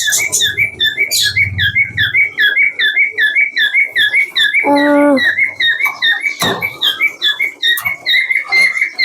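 Caged birds chirping in a rapid, steady string of short high chirps, several a second. A brief lower call comes about five seconds in, and a sharp knock about a second and a half later.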